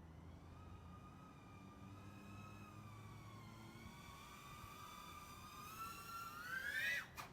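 Brushless motors and props of a 3-inch FPV quadcopter (T-Motor Pacer 1804 2400kv on 6S, Gemfan 3520 props) whining, the pitch wavering up and down with the throttle. Near the end the whine climbs sharply, then drops out for a moment.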